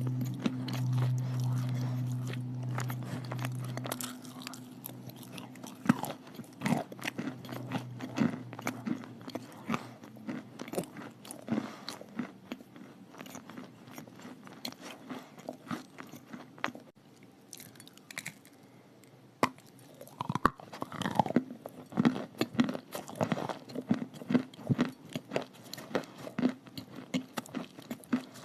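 Close-up crunching and chewing of chalk eaten with clay paste: repeated crisp bites and crackling chews. A steady low hum fades out about four seconds in.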